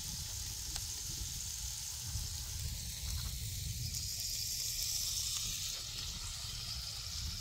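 Smash-burger patties and onions sizzling on a Blackstone propane griddle: a steady frying hiss, with a low rumble underneath.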